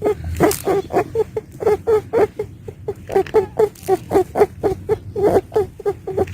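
A pet doe rabbit giving a rapid run of short squeaky calls, about five a second, some louder than others.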